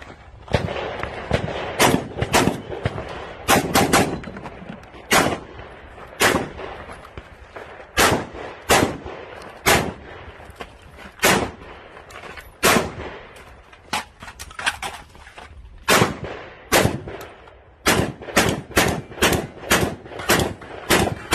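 Gunshots from a competitor shooting a practical-shooting stage: single shots and quick pairs at uneven intervals, with short gaps as he moves between positions, then coming faster and closer together in the last few seconds.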